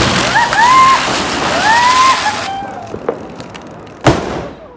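A Diwali firecracker spraying sparks with a loud hiss that cuts off suddenly after about two and a half seconds. About four seconds in comes a single sharp firecracker bang.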